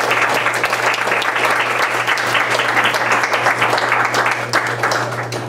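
Audience applauding: steady, dense clapping from a small group that thins out near the end.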